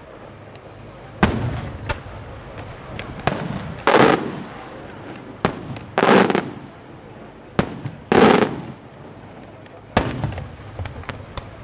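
Aerial firework shells from a St. Mary Fireworks (Malta) display bursting one after another, about one every two seconds. Sharp bangs alternate with louder, longer echoing reports.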